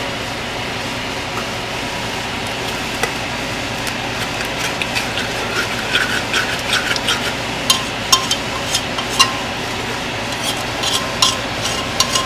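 Steel spoon stirring yogurt into frying masala in a steel pressure cooker pot: scraping and sharp clinks of spoon on metal over a steady hiss. The clinks become frequent about halfway through, a few of them ringing briefly.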